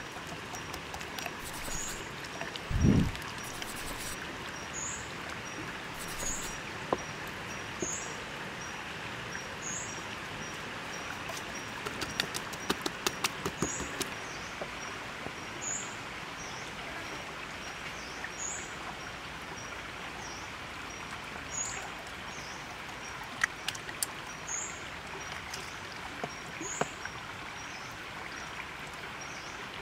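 Outdoor ambience: a steady hiss with a short high chirp repeating about every two seconds and a faint high pulsing trill. A low thump comes about three seconds in, and light clicks and taps are scattered through it.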